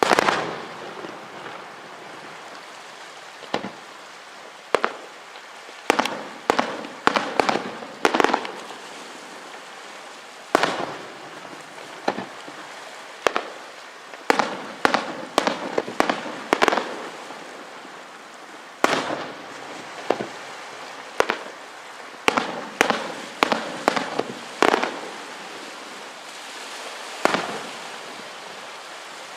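Aerial fireworks shells bursting in irregular volleys of sharp bangs, each followed by a crackling, hissing tail. The bangs come in quick clusters around 6 to 8 seconds in, 14 to 17 seconds in and 22 to 25 seconds in, with single bursts between.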